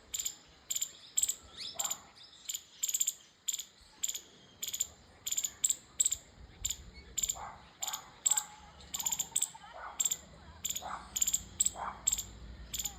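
Squirrel chirping: short, sharp, high-pitched chirps repeated in an uneven run, about two to three a second. Fainter, lower calls sound behind it from about halfway through.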